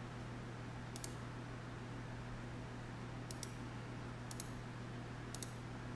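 Computer mouse clicking four times, each click a quick press-and-release pair, over a steady low electrical hum.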